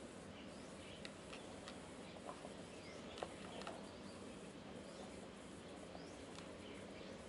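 Sugar glider chewing nuts from a plastic dish: faint, scattered crunches and clicks over a steady low background noise, the sharpest click about three seconds in.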